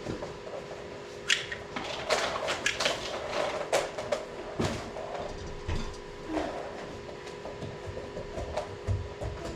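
Steady hum of a running pellet stove, with a run of sharp clicks, clatters and knocks that starts about a second in and thins out toward the end.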